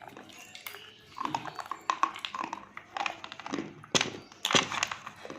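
Close-up crunching and chewing of a brittle chalky material such as slate pencil or multani mitti: a run of sharp crisp cracks and crunches, the two loudest about four seconds in.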